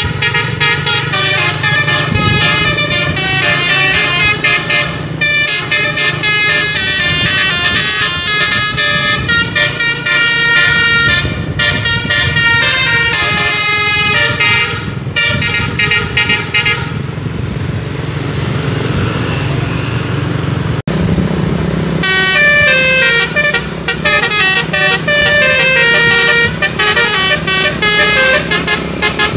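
A bus's multi-tone musical air horn (telolet) playing quick melodies of rapidly changing notes, over the steady low sound of the bus's engine. The horn stops for a few seconds past the middle, then starts playing again.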